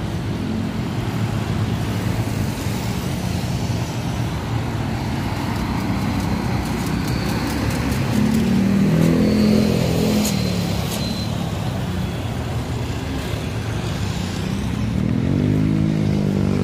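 Bus engines running at a parking lot, a steady rumble with an engine note that swells about halfway through and then climbs in pitch near the end as one revs up.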